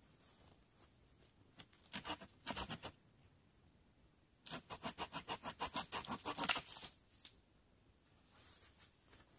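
A blade cutting into a wooden pole in quick repeated strokes: a short run about two seconds in, then a longer, faster run from about four and a half seconds to seven.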